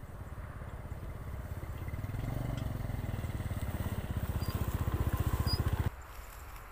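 Yamaha motor scooter engine running at low speed as it approaches, an even rapid beat of engine pulses growing louder. It stops abruptly near the end, leaving a quieter outdoor background.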